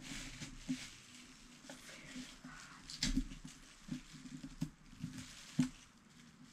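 Hard-boiled egg being peeled by hand: small irregular cracks and clicks as bits of shell break off, with a faint rustle of the wrapping underneath.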